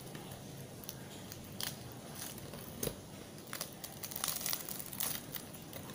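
Crisp crackling and tearing as a fried milkfish is pulled apart by hand, its crusty fried skin and flesh breaking. The crackles come in scattered bursts and are densest about four to five seconds in.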